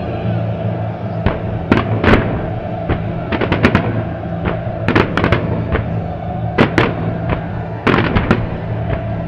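Aerial fireworks shells bursting in quick, irregular clusters, many sharp bangs in a few seconds, with music playing steadily underneath.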